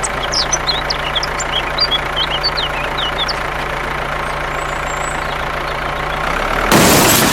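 An engine running steadily at idle, with birds chirping over it in the first few seconds. Near the end a loud burst of noise breaks in.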